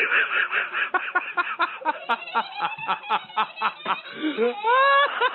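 A person laughing hard in quick, rapid bursts, ending in a loud, rising high-pitched cry near the end.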